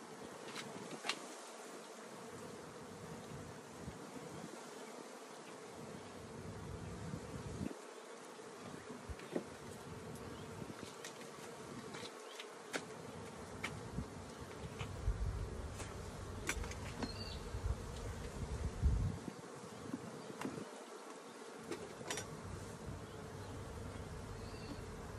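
Honeybee colony buzzing at an open hive: a steady hum, with scattered light clicks and knocks and a stretch of low rumbling in the middle.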